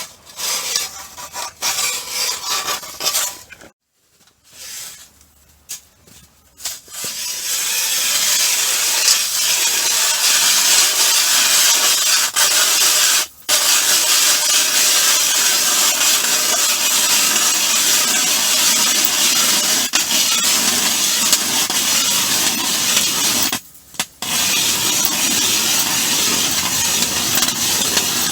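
Ice auger with brand-new blades boring a hole through lake ice: a loud, steady grinding scrape of the blades shaving ice. It starts in a few short bursts, then runs continuously, stopping briefly twice.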